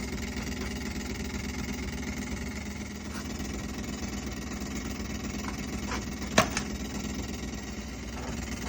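Kenmore refrigerator's condenser fan running with its blades ticking and rattling against the coils, over a steady motor hum: the fan has slid forward on its unthreaded shaft into the coils. One sharp click about six seconds in.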